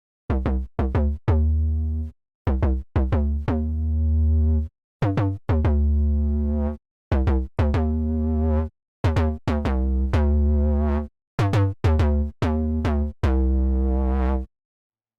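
Arturia OB-Xa V software synthesizer, an emulation of the Oberheim OB-Xa polysynth, playing a factory preset: a punchy low patch repeating a phrase of a few short stabbed notes that ends on a held note, with brief silences between phrases.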